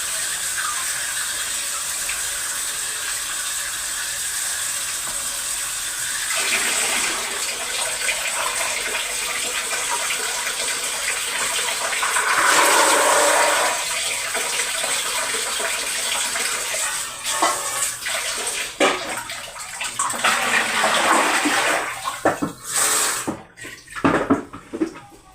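Water running from a kitchen tap into the sink, the flow louder at times and breaking up irregularly in the last several seconds, then stopping near the end.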